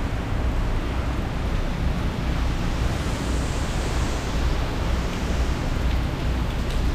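Hurricane wind and driving rain, a steady rushing hiss over a low, fluttering rumble of wind buffeting the microphone. The hiss swells briefly about three seconds in.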